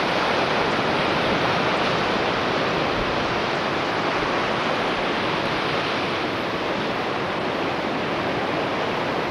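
Ocean surf breaking on the shore, heard as a steady, even rushing noise with no clear rise and fall of separate waves.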